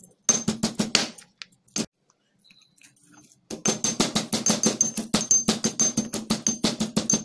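Steel pestle pounding garlic cloves in a stainless steel mortar, each blow a sharp knock with a short metallic ring. A quick run of strikes and one lone strike are followed by a pause, then steady rapid pounding at several blows a second.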